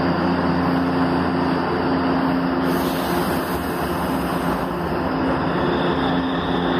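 Metro train starting to pull out of the platform, with a steady electrical hum of several tones over a broad, even rumble.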